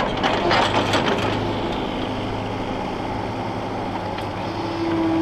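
Mini excavator's diesel engine running steadily while it digs a footing trench, with clattering in the first second or so and a steady whine joining near the end.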